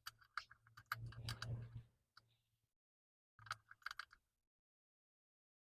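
Faint, scattered clicks and ticks of hand tools working on the motorcycle's stock mirror mount as it is removed. They come in two short clusters, with a gap of silence between.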